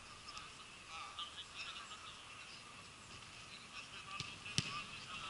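Faint open-air ambience at a football pitch: scattered distant calls and high chirps over a steady low hiss, with one sharp knock about four and a half seconds in.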